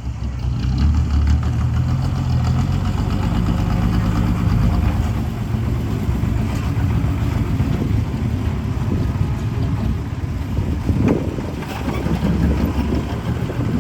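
Heavy diesel engine of a construction machine running steadily, with a short knock about eleven seconds in.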